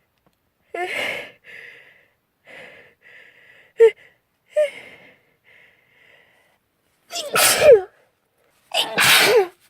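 A young woman's sneezing fit: a run of short, catching, voiced gasps builds up, then two loud sneezes about a second and a half apart near the end.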